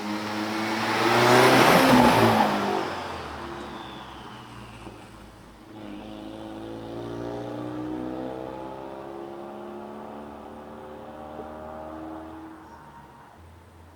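A car driving past the microphones: engine and tyre noise swell to a loud peak about two seconds in and drop in pitch as it goes by. A quieter stretch of engine sound follows from about six seconds in and fades near the end.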